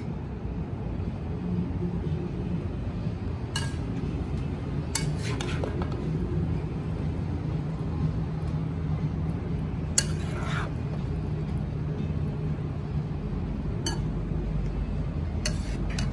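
A metal utensil clinking and scraping against a stainless steel wok as stir-fried vegetables are served out of it. There are a handful of sharp clinks a few seconds apart, the loudest about ten seconds in, over a steady low hum.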